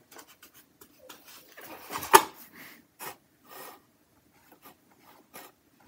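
Paintbrush loading acrylic paint on a plate palette and stroking the canvas: soft scrapes and dabs of the bristles, with one sharp tap about two seconds in, then only faint ticks.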